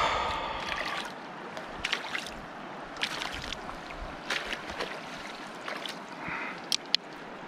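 Shallow river water running steadily, with repeated short, sharp splashes as a landing net holding a landlocked salmon is moved in the water.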